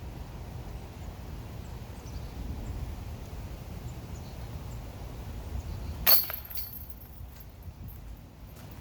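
A disc golf disc striking the chains of a metal basket about six seconds in. It makes one sharp metallic clash with a high jingle ringing on for about a second, over a steady low rumble.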